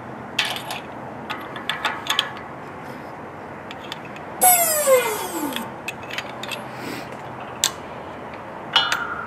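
A hydraulic shop press pushes a cartridge bearing into a Dexter Nev-R-Lube trailer hub: the jack handle and ram click and knock. About four and a half seconds in comes a long metal squeal that falls in pitch for about a second. Near the end a metal clink leaves a ringing tone.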